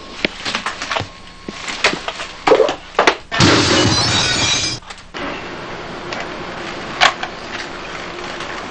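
A run of sharp clicks and knocks, then about three and a half seconds in a loud crash of breaking glass that lasts over a second.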